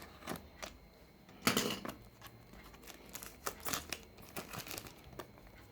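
Boxed earbud packaging being handled and unwrapped: plastic wrap and cardboard crinkling, with scattered light clicks and taps and one louder rustle about one and a half seconds in.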